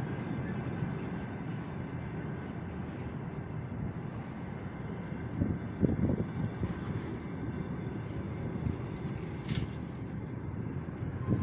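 Freight train of container flatcars rolling past: a steady rumble and clatter of wheels on the rails, with a couple of louder clanks about six seconds in.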